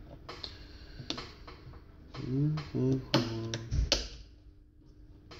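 Plastic clicks and knocks as a car headlight housing and its plastic mounting tab are handled and pressed together. About two seconds in comes a short pitched, wavering hum of a person's voice lasting over a second.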